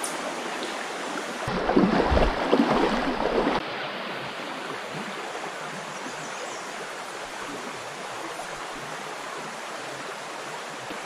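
Shallow trout stream running over a rocky riffle, a steady rush of water. About one and a half seconds in, a louder spell of about two seconds of bumps and rustling close to the microphone.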